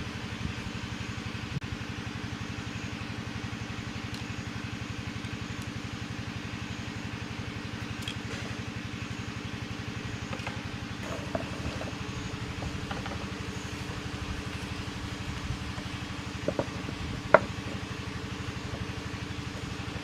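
A small engine running steadily at an even speed, with a few sharp clicks near the end.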